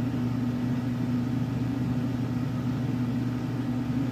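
A steady low mechanical hum, even in pitch and level throughout.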